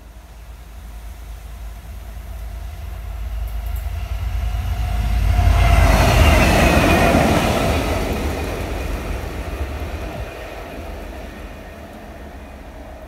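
Class 92 electric locomotive passing alone, with no train behind it. It swells to its loudest about six seconds in and then fades away. Its held tones drop in pitch as it goes by, over a steady wheel-and-rail rumble.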